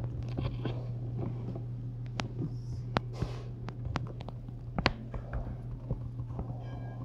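Scattered small clicks and taps of handling, with a short rustle about three seconds in, over a steady low hum from a ceiling fan.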